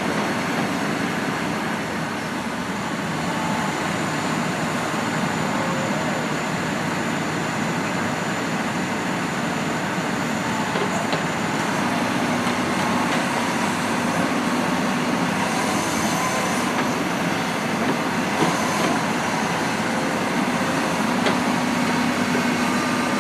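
Excavator's diesel engine running steadily under load as the machine digs, with faint whines from the hydraulics coming and going.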